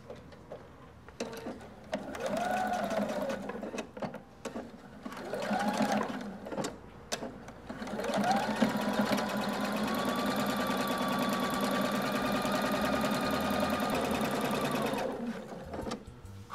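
Computerized sewing machine stitching a seam. It makes two short runs, its motor whine rising and falling with each, then a longer steady run of about seven seconds that stops suddenly near the end.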